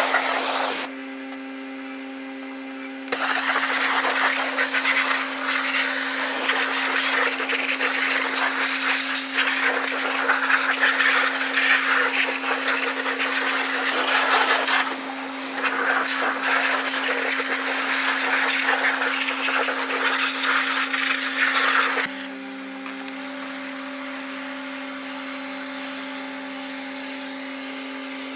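Pressure washer spraying a tractor: a steady pump hum under the hiss of the water jet, the spray stopping for a couple of seconds about a second in and briefly again after about two-thirds of the way through, leaving just the hum. Near the end the spray turns to a thinner, higher hiss as the tractor is covered in foam.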